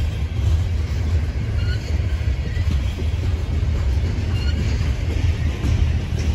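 A CSX freight train's open-top hopper cars rolling past on the track, a steady low rumble of wheels on rail.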